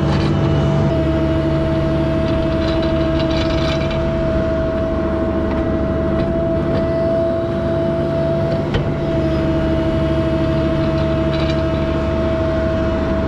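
Mini excavator's diesel engine running steadily under load while digging a trench, with a constant high hydraulic whine over the engine drone. A few faint clinks from the bucket in the dirt come about two to four seconds in and again near the end.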